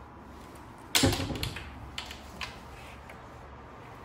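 Kitchen cupboard door being pulled open: a sharp knock about a second in, then a few lighter clicks from the door and its hinge.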